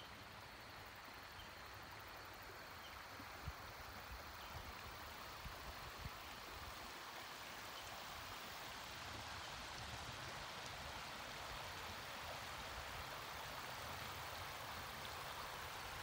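Shallow river water running and trickling over a gravel riffle, a steady gentle rush that grows slightly louder toward the end. A few soft thumps come about four to six seconds in.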